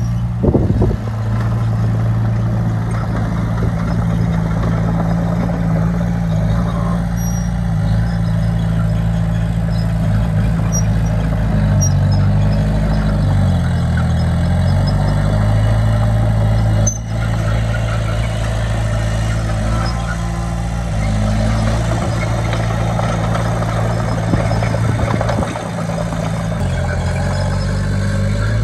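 Heavy earthmoving machine's diesel engine running steadily under load. Its pitch dips and climbs back about halfway through, shifts again briefly later, and there is a sharp knock near the start.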